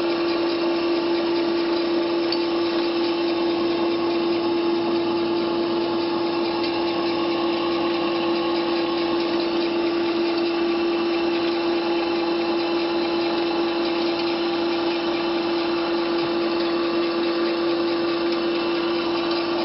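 Electric-motor-driven flat-die feed pellet mill running under load, pressing feed mash into pellets. It makes a steady hum with one strong constant pitch and a hiss.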